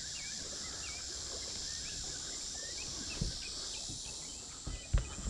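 Birds calling: a string of short, curling chirps repeated every second or so, over a steady high hiss of insects. A couple of low thumps come near the end.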